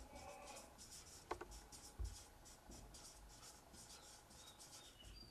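Faint scratchy strokes of a felt-tip marker writing on a whiteboard, with a couple of light taps about a second and two seconds in.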